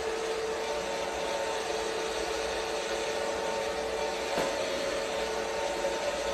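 Hand-held hair dryer running steadily: a constant rush of air with a steady motor whine. One short click sounds about four seconds in.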